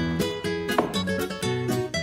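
Background music: a light tune of plucked strings, notes picked about four times a second.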